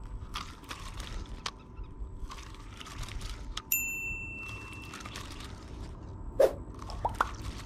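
A single bright metallic ding, like a small bell struck once, about three and a half seconds in, ringing for about a second amid scattered light clicks and handling noises.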